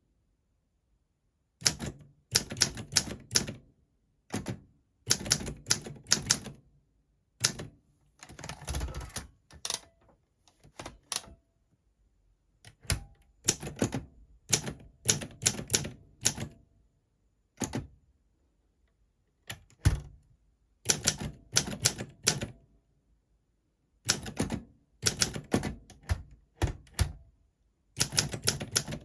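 Olympia SM4 manual portable typewriter being typed on: bursts of quick, sharp keystrokes with short pauses between the runs.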